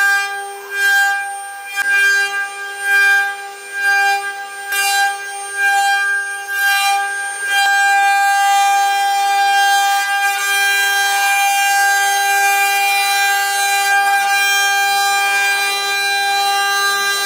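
Spindles of a 12-head 4-axis CNC wood carving router running at high speed with a steady high whine, while the cutters carve wood. The cutting noise comes in surges about once a second at first, then runs continuously from about halfway through.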